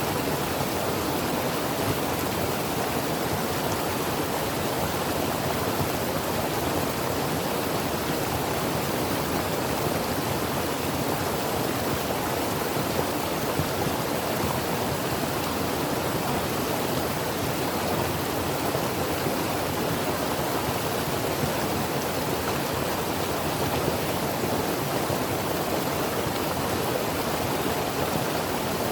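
Creek water running over rocks: a steady, even rush of flowing water.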